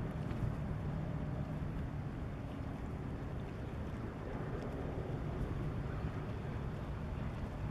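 Steady low rumble of wind on the microphone over a dull, even harbour background noise.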